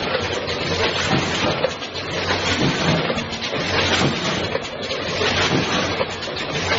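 Automatic vacuum rotary pouch-packing machine running: a dense mix of clattering and hissing over a steady low hum.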